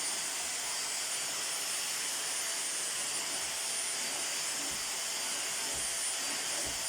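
Kitfort KT-523-3 vacuum cleaner running steadily, a constant hiss of suction with a thin high whine.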